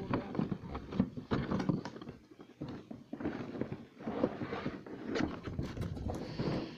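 Cardboard box and its packaging being handled close to the microphone: irregular scraping, rustling and knocks.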